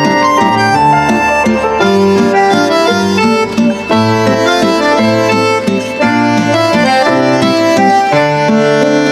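Instrumental background music: a melody played over held low notes.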